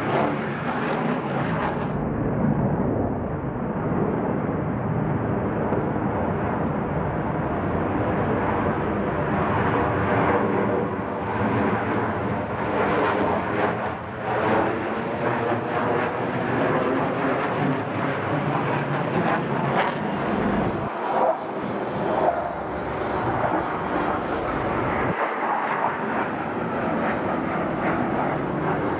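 Loud, steady jet engine noise from military fighter jets climbing out after takeoff.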